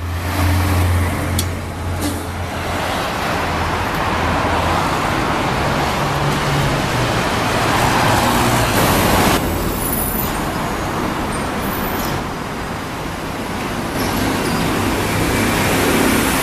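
Busy city road traffic: cars, vans and trucks passing, with a heavy truck's diesel engine humming low in the first couple of seconds. The sound changes abruptly a few times.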